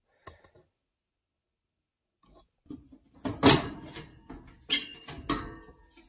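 Louvered sheet-metal front access panel of a Carrier gas furnace being lifted off: a faint click, then a run of metal rattles and knocks over the last three seconds, loudest about halfway through.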